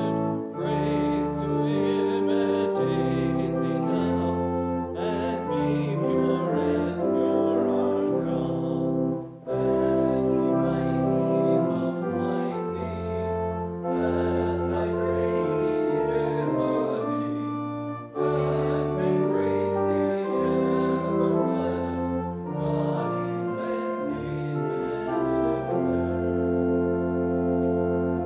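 Church organ playing slow, sustained chords in phrases, with short breaks about nine and eighteen seconds in. It stops just at the end.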